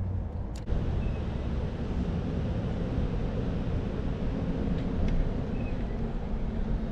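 Steady low rumble of wind buffeting the microphone over outdoor river ambience, with a single sharp click about half a second in.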